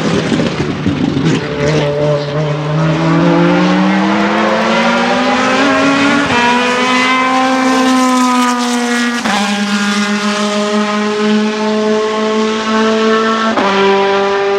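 Ferrari F430 GTC racing car's naturally aspirated 4.0-litre V8 at high load. It crackles and pops at first, then its note climbs steadily and drops sharply in pitch at quick sequential-gearbox upshifts about nine and thirteen and a half seconds in.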